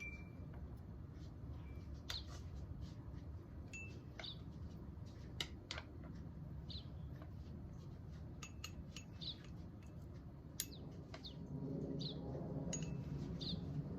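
Scattered light clinks of dishes and utensils, some ringing briefly, with short high chirps between them over a steady low hum.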